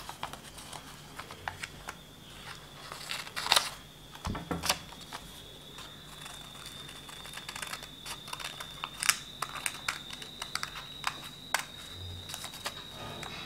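Scissors snipping through folded pink paper: a run of short, irregular snips and paper rustles, over a faint steady high-pitched whine.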